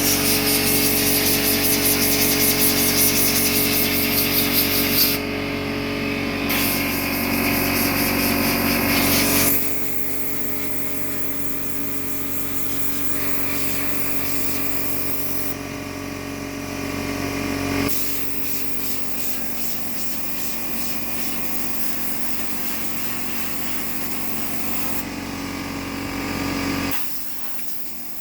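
Compressed air blown through an air-conditioner coil in long hissing blasts, over a steadily running air compressor. The blasting is loudest for the first ten seconds, with a brief break, then lighter. The sound drops away near the end.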